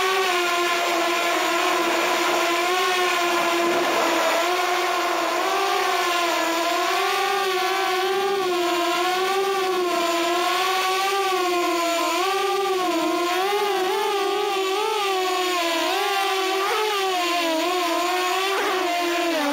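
Walkera F210 3D racing quadcopter's brushless motors and propellers whining, the pitch rising and falling constantly as the throttle changes. The pitch drops away at the very end as the motors spin down.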